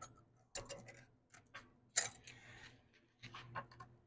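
Faint small metal clicks and scrapes as a feeler gauge is worked between a Honda GX340's ignition coil and flywheel to set the coil's air gap. The sharpest click comes about two seconds in, followed by a short scrape, and a few more clicks follow a second later.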